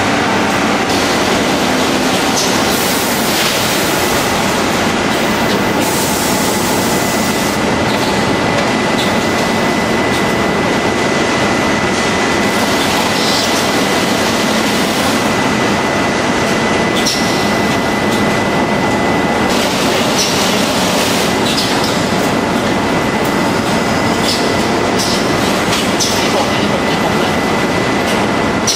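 Rice-bagging line machinery running: belt conveyors and bagging equipment make a dense, steady mechanical noise with a thin steady whine and short brighter bursts every few seconds.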